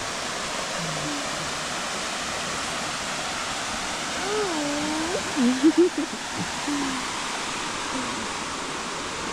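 Steady rushing of a waterfall, with a few brief words from voices about halfway through.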